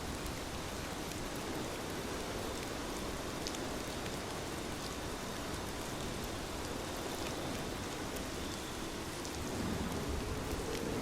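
Steady rain falling, a dense hiss with scattered sharp drop ticks. A deeper rushing layer swells a little louder near the end.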